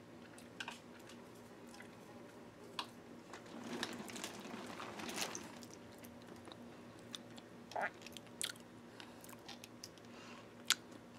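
A person chewing a mouthful of food close to the microphone, faint, with scattered small wet mouth clicks and denser chewing about four to five seconds in.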